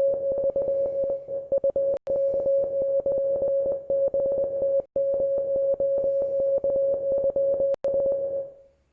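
International Morse code sent as a single steady mid-pitched tone, keyed on and off with many quick breaks and a few longer pauses. It stops shortly before the end.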